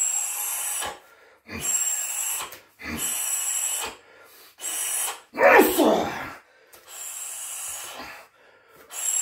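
A Muay Thai fighter's forceful hissing exhalations as he throws kicks, about six in a row, each lasting close to a second. The one about halfway through comes out voiced, like a grunt.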